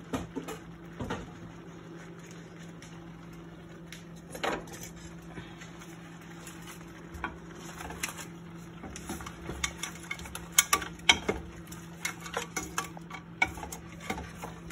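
Wooden spatula stirring shell-on seafood in a stainless steel pan: scattered clicks and scrapes of shells and wood against metal, coming thicker in the second half, over a steady low hum.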